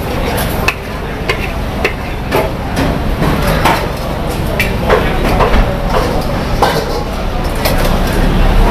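Metal spatula scraping and clanking against an iron wok while noodles are stir-fried, in irregular knocks about once or twice a second. Under it runs a steady low traffic rumble that grows louder near the end.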